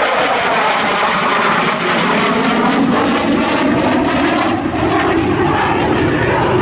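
Loud, steady jet noise from a Saab JAS 39 Gripen's Volvo RM12 turbofan as the fighter flies its display.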